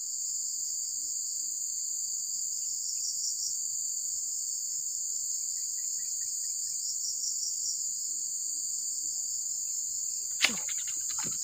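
Steady high-pitched insect chorus with a pulsing trill running through it and a few faint chirps, broken near the end by one brief sudden whoosh.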